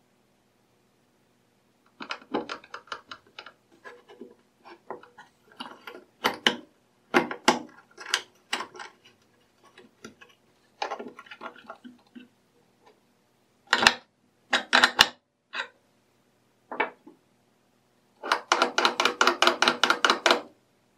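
Wooden block and metal hardware of a homemade angle-grinder lathe jig being handled and fitted by hand: scattered knocks, clicks and scrapes of wood and metal, a few sharp knocks past the middle, and a fast run of clicks, about seven a second, for two seconds near the end.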